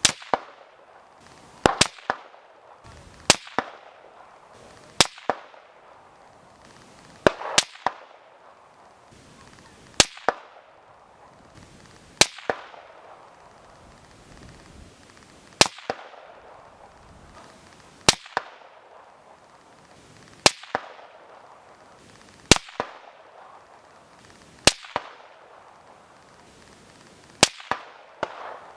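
Rifle shots at an outdoor range, about fifteen sharp cracks spaced roughly every two seconds, a few coming in quick pairs, each with an echoing tail.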